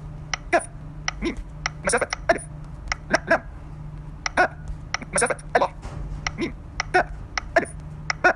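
Typing taps on a smartphone's on-screen keyboard: about twenty short, sharp key clicks at an uneven pace, two or three a second, over a steady low hum.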